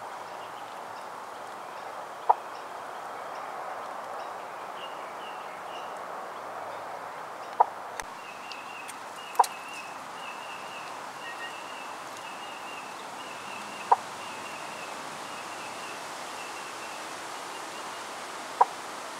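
Steady outdoor background hiss with five short, sharp pops several seconds apart, which are the loudest sounds. From about five seconds in there is a faint run of high chirps, about two a second, that stops near the end.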